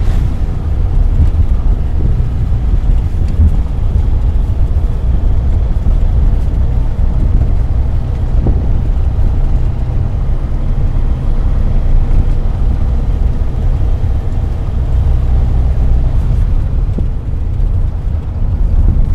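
1984 Daihatsu Hijet 1000 under way, heard from inside the cab: a steady deep engine drone with road noise while driving at an even pace.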